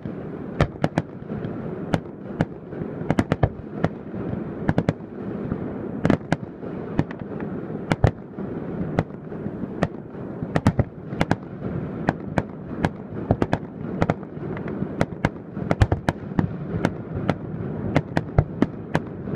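Fireworks display: aerial shells bursting in quick, irregular succession, with sharp bangs, often several a second, over a steady rumble.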